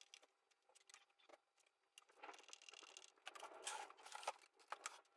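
Faint handling noises from the opened CRT television and its wiring: scattered light clicks, then a busier run of rustling and scraping from about two seconds in.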